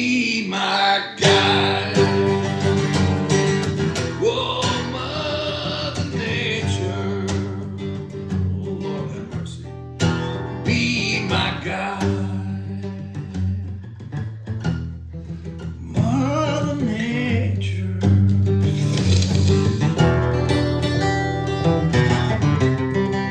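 Guitar playing an instrumental passage of plucked notes and strummed chords.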